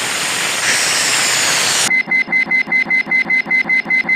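A loud steady hiss, cut off about two seconds in by a cartoon sound effect of rapid alarm-clock-style beeping: a single high tone pulsing about five times a second.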